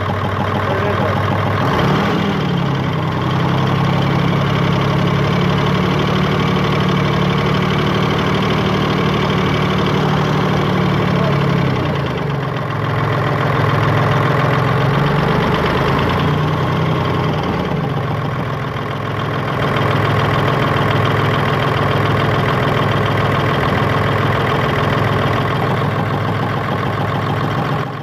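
Hino J08C six-cylinder diesel engine idling with an abnormal noise that the mechanic traces to the engine-driven air compressor, a compressor later found to have a faulty piston. The engine's pitch rises briefly a couple of times.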